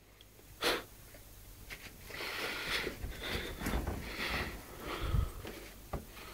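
West Highland white terrier puppy snuffling and huffing in a run of short noisy breaths while it tussles with a cat, with a few soft bumps of bodies on the carpet.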